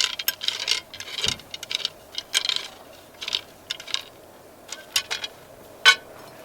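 Irregular clinks and rattles of small hard objects being handled, with one sharper clink near the end.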